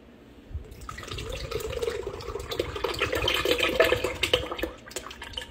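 Evaporated milk poured from a can into a glass blender jar onto raw eggs, a steady gurgling splash that starts about half a second in and tapers off near the end.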